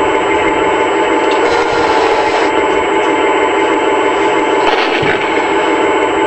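RC tank sound unit playing a recorded V-2 V12 diesel engine sound through a small onboard speaker, running steadily with a thin, tinny tone.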